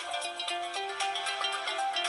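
Polyphonic Nokia 2630 ringtone played on a Sony Ericsson W595 mobile phone: a synthesized melody of short stepping notes over a bass line, with quick percussive ticks.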